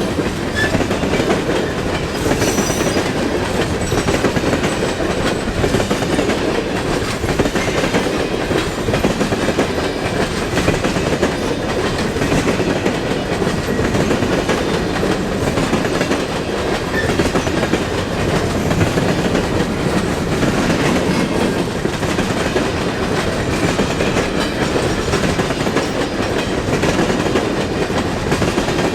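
Freight train cars rolling past, their steel wheels running over the rails in a loud, steady noise.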